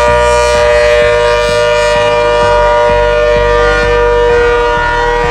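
Hurricane 130 outdoor warning siren sounding a loud, steady tone with two pitches held together, without rising or falling.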